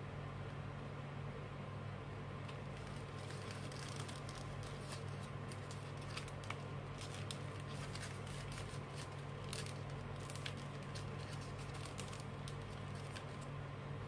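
Sheet of paper crinkling and crackling in the hands as it is creased and folded into an origami crane: a run of short, irregular crackles starting a few seconds in. A steady low hum runs underneath.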